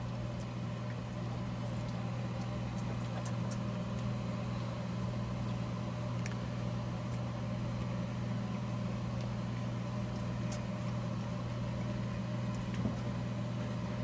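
Electric fan running with a steady low hum.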